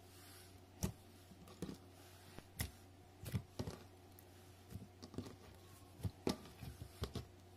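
Clear slime being folded over a pile of sand and pressed by hand, giving irregular sharp clicks and pops, about one or two a second.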